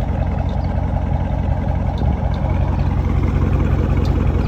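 Dodge Charger Scat Pack's 6.4-litre HEMI V8 idling steadily.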